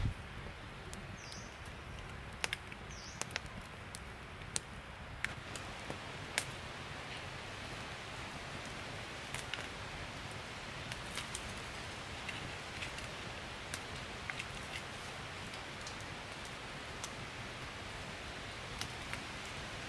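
Open wood fire crackling: irregular sharp pops and snaps over a steady low hiss.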